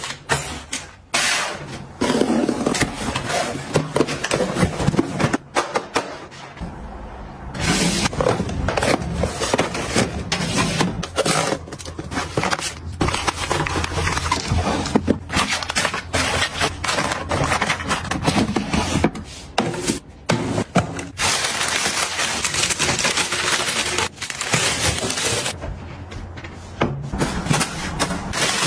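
Plastic-wrapped packs of wet wipes and steam eye mask sachets being handled: packaging crinkling and rustling, with many small knocks and scrapes as items are set into wire baskets.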